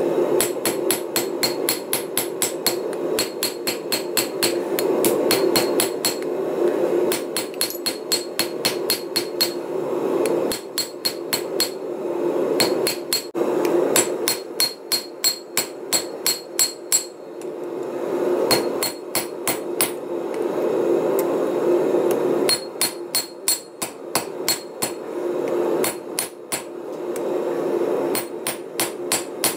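Hand hammer forging red-hot steel held in tongs on a chain-draped steel anvil: runs of quick blows, about three to four a second with brief pauses between runs, each blow leaving a bright metallic ring.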